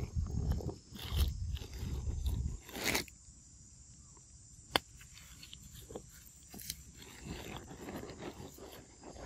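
Macaques feeding on fruit among dry leaves: crunching, chewing and rustling of leaf litter. A loud low rumble fills the first two and a half seconds, and a single sharp click comes about five seconds in.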